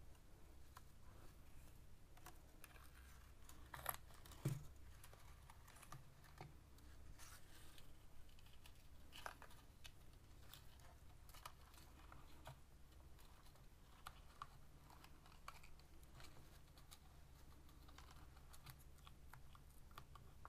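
Faint, irregular clicking and ticking of glass beads and wire being handled, with two louder clicks about four seconds in.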